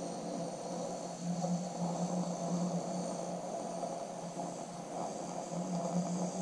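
A man humming a low drone through pursed lips as a flying sound effect, swelling and fading, over faint room hiss.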